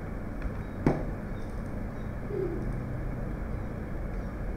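Steady background hum and hiss, with one sharp knock about a second in and a faint short low hoot a little past the middle.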